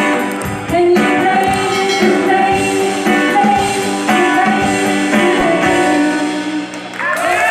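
Live band music: a singer over guitar and a steady beat.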